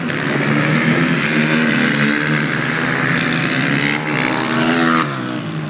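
Supermoto race motorcycle engines running on the circuit, their pitch rising and falling as the riders work the throttle. The sound grows louder about four seconds in, then drops off sharply near five seconds.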